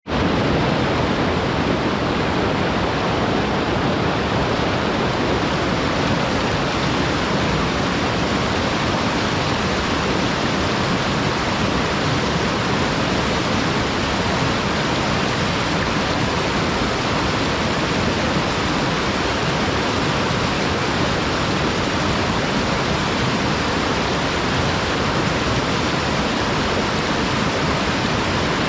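Waterfall running steadily, water sheeting straight down a flat, smooth rock slope with no obstacles: a loud, even, unbroken rush.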